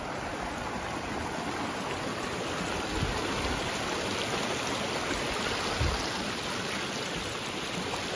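Shallow mountain creek running over stones and small riffles, a steady rushing trickle of water.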